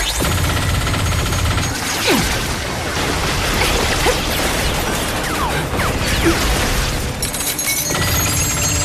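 Continuous rapid machine-gun fire with booms and a few falling whizzes, mixed with music: a battle-scene sound mix for a rotary machine gun.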